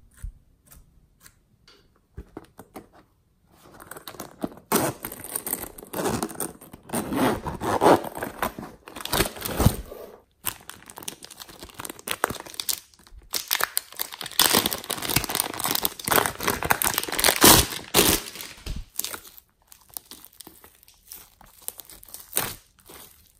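Plastic packet crinkling loudly as red glitter slime is handled and pulled out of it, after a few light taps at the start. Near the end it gives way to quieter squishing of the slime squeezed in a hand.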